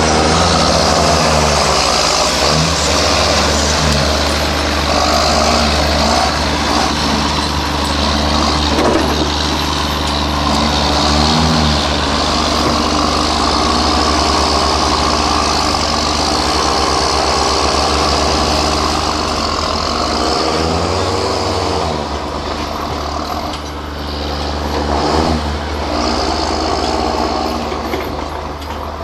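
John Deere farm tractors' diesel engines running hard under load while one tractor pulls another out of deep mud; the engine note rises and falls several times.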